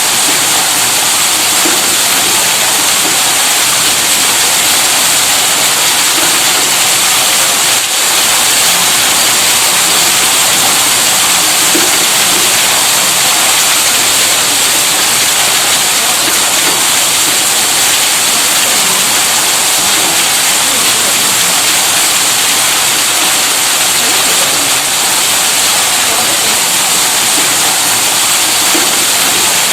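Electric tube well pump motor running steadily, a loud, even rushing hiss like pouring water, with no change in pitch or rhythm.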